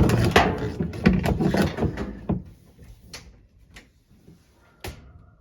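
A clothes dryer being shifted into place against the wall: a rapid run of knocking and scraping for about two and a half seconds, then three sharp single knocks spaced out toward the end.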